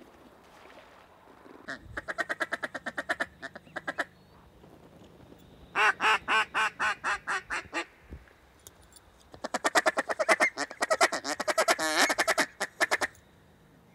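Three runs of rapid mallard quacks: a quick run about two seconds in, a second run near the middle that starts loud and tapers off quack by quack, and a longer, busier run near the end.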